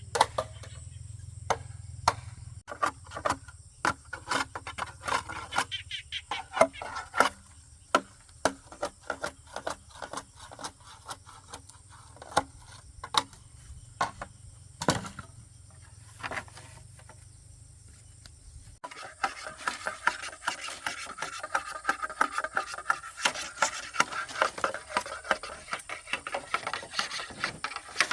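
Hand work on wood: irregular knocks and taps for most of the time, then from about two-thirds of the way through a denser, continuous scraping and rubbing on wood.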